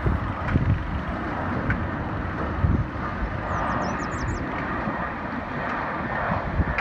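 Wind buffeting the microphone over the steady distant rush of a jet airliner landing, with a few faint high chirps about three and a half seconds in.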